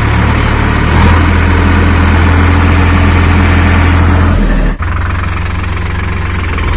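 Three-cylinder diesel engine of a Sonalika 50 RX Sikander tractor running steadily while the tractor drives along. The engine note changes abruptly about two-thirds through and runs on slightly lower.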